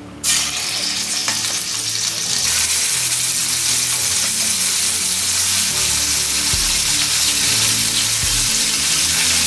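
Chicken pieces going into a well-heated pan of oil and frying, a loud hissing sizzle that starts suddenly just after the start and keeps going steadily.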